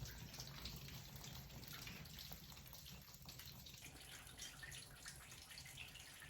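Faint dripping and trickling water over a low steady hum.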